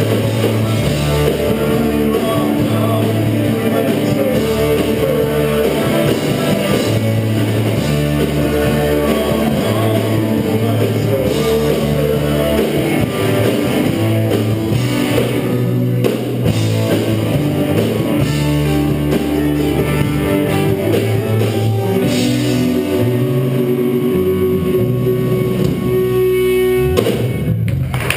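Live rock band playing: electric guitars over a drum kit, with a long held note near the end.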